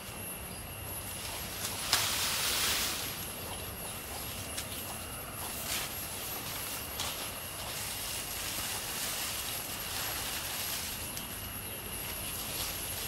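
Cut leafy lychee branches rustling as they are gathered and moved by hand, with a louder swish about two seconds in, plus scattered snaps and footsteps through the undergrowth.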